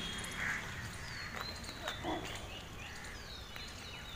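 Faint outdoor ambience with scattered short, falling bird chirps and one brief low animal call about two seconds in.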